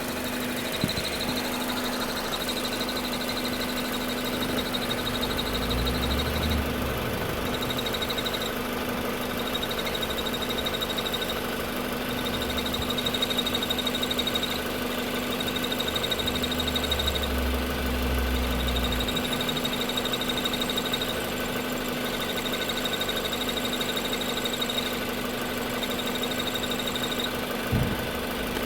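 Car engine idling, with a high whine that switches on and off every second or two. The noise is there with the clutch released and gone with the clutch pedal pressed. A deeper low rumble joins for a few seconds twice.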